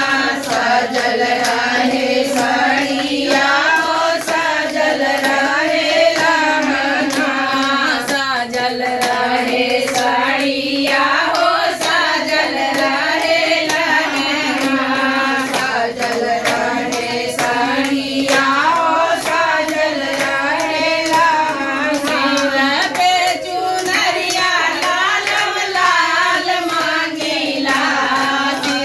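A group of women singing a Hindi devotional folk song (devi geet) together, keeping time with hand claps.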